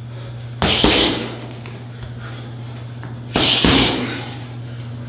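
Punches smacking into handheld focus pads in two jab-cross combinations. Each is a quick pair of hits about a quarter second apart, the first pair about half a second in and the second about three and a half seconds in, over a steady low hum.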